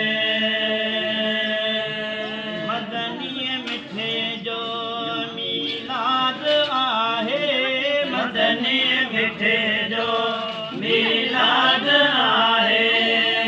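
Male voices chanting a Sindhi molood, a devotional song in praise of the Prophet. It opens on one long held note, then melodic lines wind up and down over a steady held drone.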